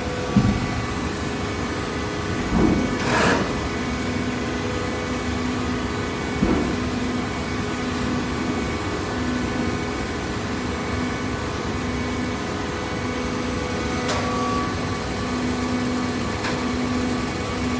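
Vertical hydraulic paper baler running, its electric motor and hydraulic pump giving a steady hum. A few clunks and knocks cut through, the loudest about three seconds in.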